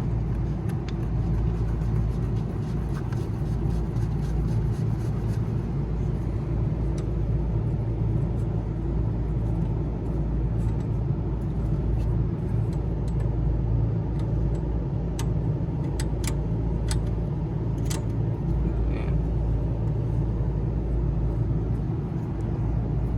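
Steady low machinery rumble with a hum, and a few sharp clicks about two thirds of the way through.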